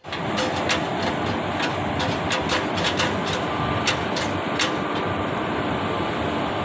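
Locomotive standing coupled to its coaches with its machinery running steadily, under a quick series of sharp metallic clicks and clanks as a railwayman works the coupling and brake hoses. The clicks fall in the first five seconds.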